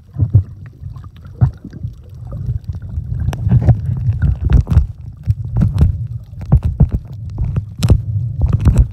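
Sea water heard underwater through a camera's microphone: a muffled low rumble with many short clicks and pops, more of them from about three seconds in.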